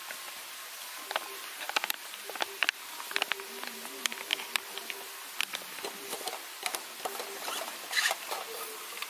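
Ready-to-drink coffee squeezed from a plastic spout pouch into a steel tumbler holding a few ice cubes: scattered crinkles and sharp little clicks. About eight seconds in there is a brief, denser rustle as the tumbler's lid is screwed on.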